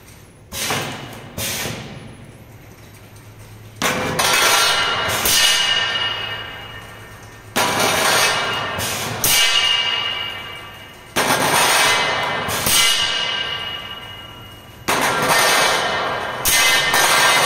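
Long stainless-steel tubes clanging against metal on a pipe-labelling machine, each strike ringing on in several tones and dying away over a couple of seconds. A fresh clang comes about every two seconds.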